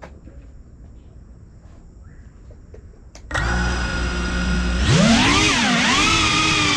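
FPV quadcopter's brushless motors spinning up. After about three seconds of faint background noise they start with a steady idle whine. Near the end they throttle up into a louder whine that swoops up and down in pitch as the drone lifts off.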